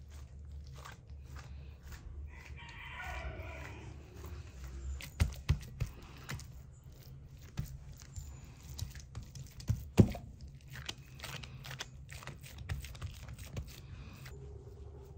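A rooster crows once, about two seconds in, lasting roughly two seconds and falling in pitch at the end. Scattered sharp knocks and clicks sound throughout, over a low steady hum.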